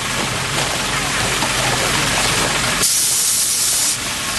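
Liquid gushing from a septic tank vacuum truck's rear discharge outlet and splashing onto a concrete floor, with the truck's engine running underneath. About three seconds in, a sharp high hiss starts and lasts about a second.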